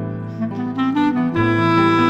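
Clarinet, violin and piano playing together as a chamber trio. A melody moves over sustained lower notes, with the notes changing about half a second in and again near the end.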